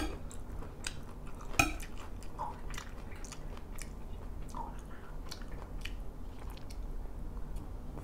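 Close-miked chewing of a Thai spicy squid salad, with scattered small clicks of a spoon and fork on the plate; the sharpest clicks come just after the start and about a second and a half in.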